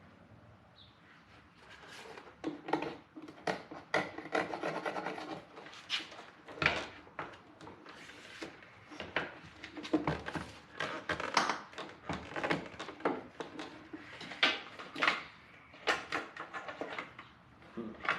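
Car door mirror parts being handled and fitted against the door: irregular knocks, clicks and rubbing scrapes, starting about two seconds in.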